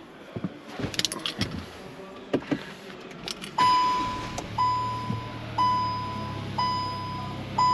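Handling clicks and rustles as the driver settles into the Kia Rio, then the car's warning chime dinging about once a second. A second after the chimes begin, a steady low hum joins as the 1.0 T-GDI three-cylinder engine starts and idles.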